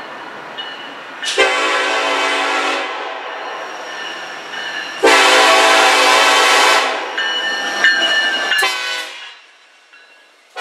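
Union Pacific SD70ACe diesel locomotive's air horn blowing loud blasts as the train approaches: two long ones, then shorter ones, over the low rumble of the train.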